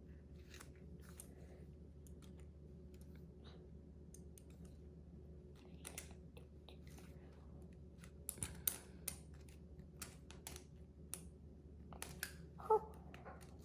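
Small plastic LEGO pieces clicking and clattering as they are handled and pressed together, in scattered sharp clicks that come thicker in the second half.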